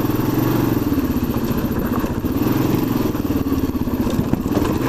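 Dual-sport motorcycle engine running under changing throttle, its pitch rising and falling a couple of times.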